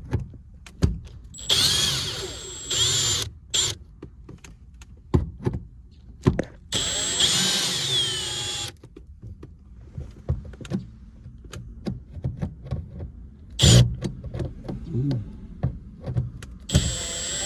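Power drill/driver running in three short bursts of about two seconds each, the motor whining with shifting pitch as it works screws loose. Scattered clicks and knocks of handling in between.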